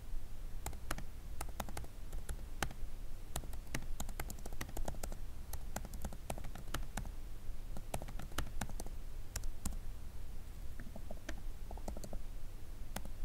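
Typing on a laptop keyboard: irregular quick key clicks, some in fast runs and some singly with short pauses.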